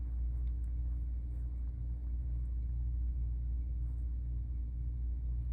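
Steady low rumble with a constant faint hum over it: background room noise, with no voice or sneeze.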